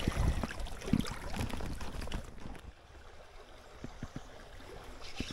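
Small stream running over its bed, with a few low rumbles and soft knocks in the first two seconds or so, then quieter running water with a few small clicks.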